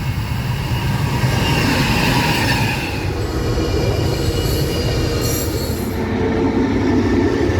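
Freight train running past, with a continuous rumble and wheels squealing on the rails.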